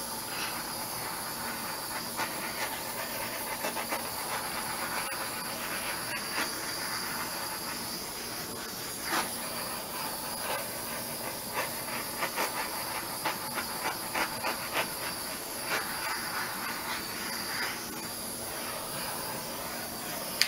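Steady hissing from a handheld heat tool passed back and forth over a wet acrylic pour painting, with scattered faint ticks. It switches on with a click at the start and cuts off with a click at the end.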